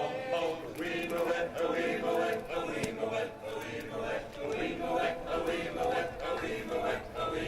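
Barbershop chorus singing a cappella in four-part harmony, on a song that features the tenor part.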